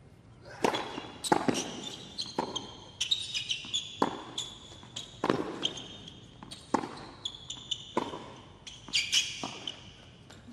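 Tennis rally on a hard court: a serve, then racquets striking the ball back and forth with bounces in between, about one sharp hit every second or so. Players' shoes squeak on the court between shots.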